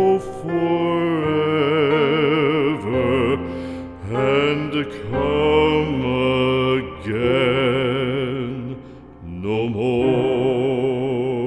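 Slow background music: a melody of long held notes with strong vibrato, in phrases of a few seconds with short breaks between them, and no words.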